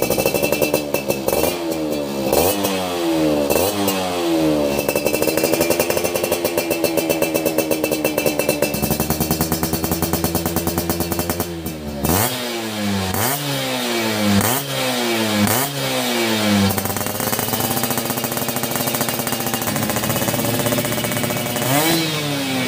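Yamaha F1ZR's two-stroke single-cylinder engine, freshly refitted, being revved on its stand with a crisp exhaust note. It gives a run of quick throttle blips, then a longer held rev, about five more sharp blips, and steadier running with another blip near the end.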